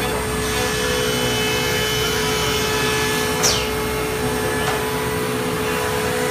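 CNC router spindle running steadily while machining a wooden rifle stock: a constant whine over a hiss of cutting noise, with one brief falling sweep about three and a half seconds in.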